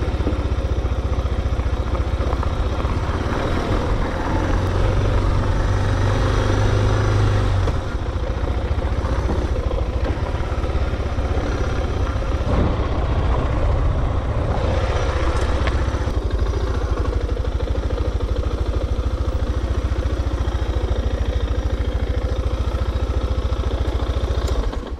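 Suzuki DR650's single-cylinder four-stroke engine running steadily as the bike is ridden at low speed, heard from on board. The engine note drops slightly about eight seconds in.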